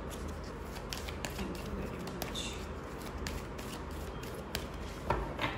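An oracle card deck being shuffled by hand: a run of quick, irregular light card clicks and flicks, a little louder near the end.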